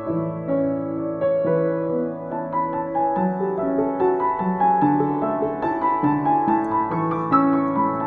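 Yamaha JX113T upright piano, freshly tuned, being played with both hands: a slow melody over sustained lower chords. The upper front panel is off, leaving the hammers and strings open.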